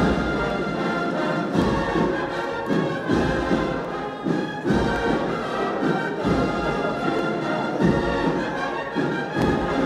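Brass band playing a Holy Week processional march, with a low drum beat recurring about every second and a half.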